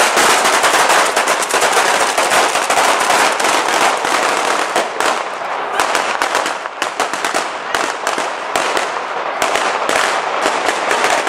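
Firecrackers of a Valencian mascletà going off in a rapid, continuous crackle, from a string of firecrackers (traca) burning along a rope overhead and from firecrackers in the square. The crackle is dense at first and breaks into more separate sharp bangs in the second half.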